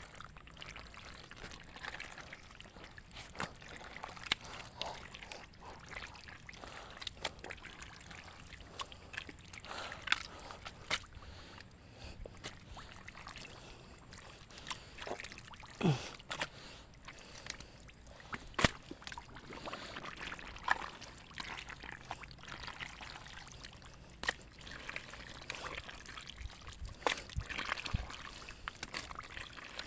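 Shallow muddy water trickling and splashing, with scattered short splashes and clicks every few seconds.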